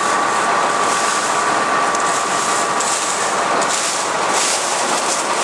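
Corn silage forage harvester running steadily, with a constant high whine over a dense mechanical rush.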